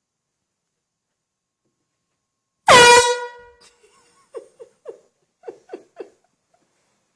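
Handheld air horn blasted once about two and a half seconds in: a loud, sharp, single-pitched blare that rings out and dies away within about a second. Six short, quieter bursts follow near the end.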